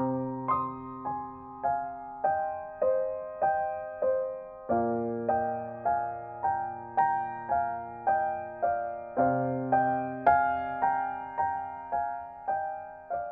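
Slow, gentle piano music of broken chords, single notes struck about twice a second and left to ring. A low bass note changes roughly every four and a half seconds.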